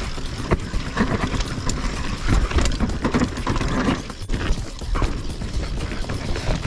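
YT Capra enduro mountain bike riding down a dirt forest trail. Tyres roll over the dirt while the chain and frame rattle and knock irregularly over bumps.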